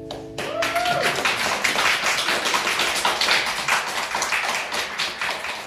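A small audience applauding as a song ends, the clapping tapering off near the end. One short whoop comes about half a second in.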